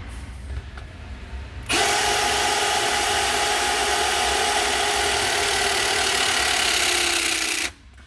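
Milwaukee M18 12-tonne battery hydraulic cable crimper's motor and pump running through a crimp on a copper cable lug. It starts abruptly a little under two seconds in, runs steadily for about six seconds with a steady whine in it, and cuts off suddenly near the end.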